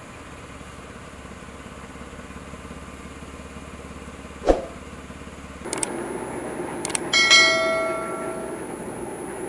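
Subscribe-button sound effect: clicks, then a bright bell ding that rings and fades over about a second. Before it, a steady low background hum with one sharp click.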